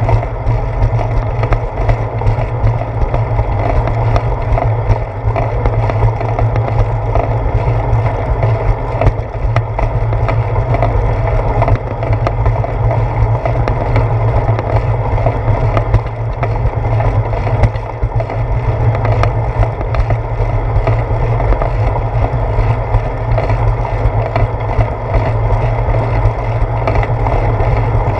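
Steady rumble of a bicycle rolling along a concrete sidewalk, picked up by an action camera mounted on the seat post: road vibration and wind noise, with small scattered knocks from bumps in the pavement.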